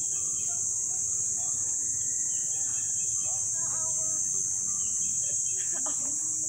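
Insect chorus: a steady, high-pitched buzzing that holds unbroken throughout, with faint distant voices here and there.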